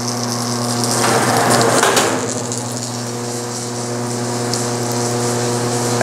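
Electric wire stripping machine (Bluedog BWS-50 SAR) running with a steady motor hum, with about a second of coarse scraping noise starting about a second in as 14-3 Romex cable is drawn through its rollers and blades and the outer sheath is slit off.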